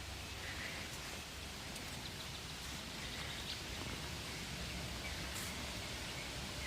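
Forest ambience: a steady soft hiss with a few faint, distant bird chirps scattered through it.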